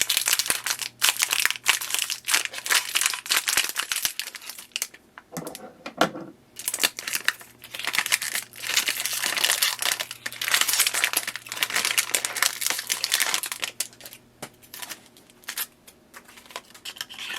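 Plastic packaging of HP 64 ink cartridges crinkling and tearing as the cartridges are unwrapped by hand, in two long bursts with a short pause about six seconds in, then quieter rustling near the end.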